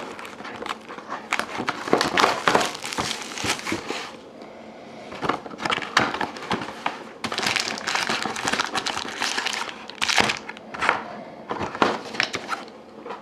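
Plastic wrapping crinkling and rustling by hand in irregular bursts as a sealed box of trading cards is unwrapped and opened, with a short lull about four seconds in.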